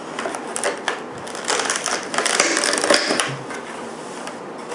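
Holster packaging being opened by hand: a run of crackles and clicks, busiest from about a second and a half to three seconds in.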